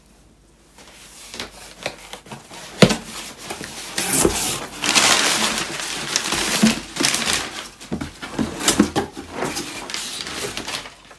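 Paper and cardboard packaging rustling and crinkling as it is handled, loudest a few seconds in, with a few light knocks as a boxed jigsaw puzzle is lifted out.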